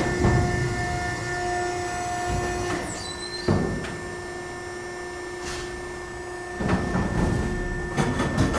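Motor-driven shredding machine running with a steady humming whine. Irregular bursts of grinding and crunching come as material is fed in: one at the start, one about three and a half seconds in, and a longer rough stretch with sharp clicks near the end.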